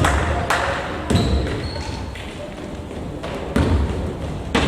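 A basketball bouncing on a gym floor: a few uneven thuds, three in the first second or so, then a pause of about two seconds before two more near the end.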